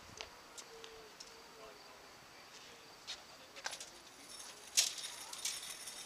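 Tennis balls being struck and bouncing on a hard court, heard as a few sharp, separate pops, the loudest about five seconds in. Near the end comes a crackling rattle of balls in a wire ball cart.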